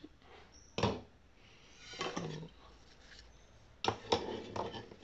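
Handling noise of a plastic vacuum cleaner kit being moved by hand: a sharp knock about a second in, brief rustling around the middle, then a run of knocks and rustles near the end as the accessories are set aside and the carry bag is handled.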